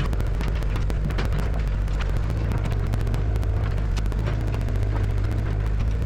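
Diesel engine of a Cat 307SSR mini excavator running at a steady speed, with a fine clatter through it as the machine works.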